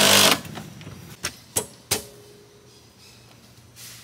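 Cordless impact driver hammering a fastener through vinyl siding into the wall-mount bracket, cutting off a fraction of a second in. It is followed by three sharp clicks, about a second to two seconds in.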